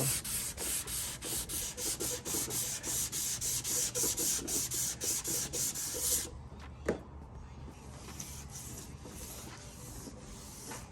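Wet sanding with 320-grit paper on a sanding block, rubbed back and forth over the painted plastic body of a ride-on toy truck at about three strokes a second. The sanding stops about six seconds in, and a single light knock follows.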